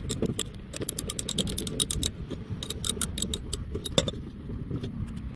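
Hand socket ratchet clicking in quick runs as a 10 mm bolt under the car's side skirt is turned out; the clicking stops about four seconds in.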